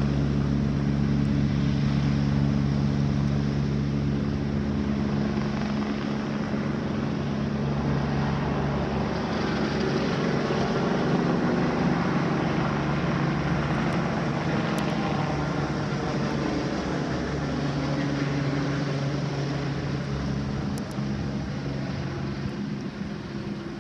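Firefighting helicopter flying low overhead with a bucket slung on a long line: steady rotor and engine noise that gets fainter near the end as it moves away.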